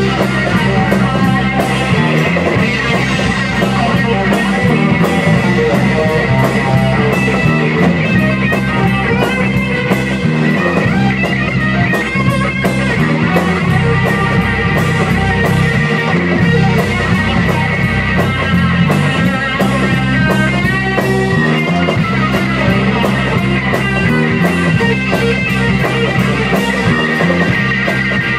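A rock band playing live: electric guitar, electric bass and a Tama drum kit, with a steady drum beat.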